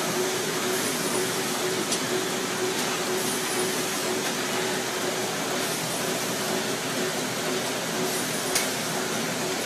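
PFM Hurricane flow wrapper feed system running: a steady mechanical noise with a constant tone, a hiss that comes and goes, and an occasional sharp click.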